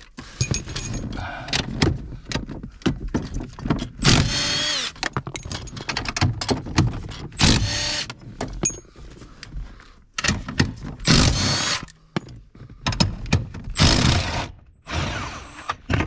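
Cordless impact driver with a socket extension running in short bursts, about four loud ones, each spinning up with a rising whine as it backs out bolts, with clinks of the tool and metal between the bursts.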